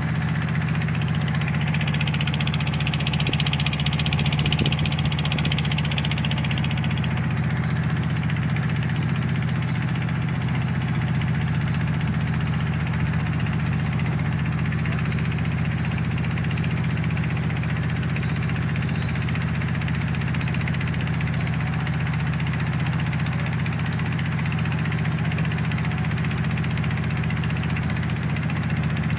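River car ferry's engine running steadily while under way, a constant low hum with no change in pitch or level.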